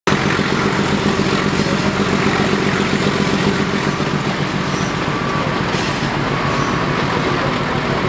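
YDM4 diesel-electric locomotive's engine running steadily under power, heard close up from beside the cab, with rushing wind and rail noise from the moving train.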